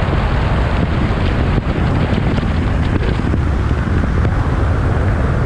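Chevy Silverado's 5.3-litre V8 through an MBRP cat-back exhaust, running steadily while the truck is driven, with heavy wind noise buffeting the GoPro microphone.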